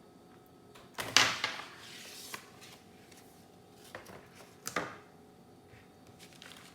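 Paper and cardboard craft-kit pieces being handled: a loud rustle about a second in that trails off, then two shorter rustles later on.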